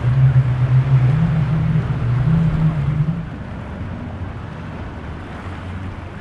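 Powerboat engines droning loudly as a boat runs through the inlet, the pitch wavering a little, then falling away about three seconds in to leave a steady rush of water and wind.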